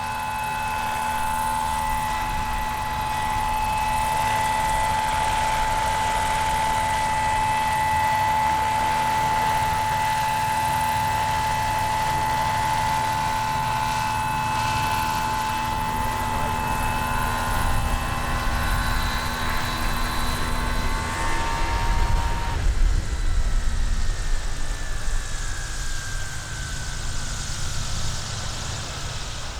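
Radio-controlled model aircraft motor whining at a steady high pitch. About 21 seconds in the whine fades away and a louder, gusty low rumble takes over, with a faint falling tone.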